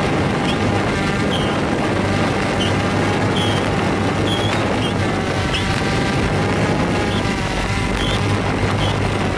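Multirotor drone's motors and propellers running steadily, a dense whine whose pitch wavers slightly as it holds a hover, with short high chirps about once a second on top.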